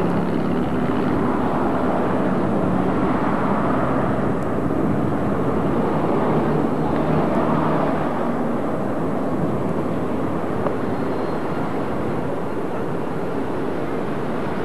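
Steady outdoor background noise through a camcorder microphone, with a faint low steady hum over roughly the first eight seconds.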